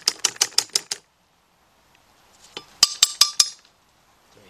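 A quick run of evenly spaced metallic clicks for about a second, then a pause, then a short cluster of sharp, ringing metal clinks past the middle as the rusty metal bracket and hand tools are handled on the workbench.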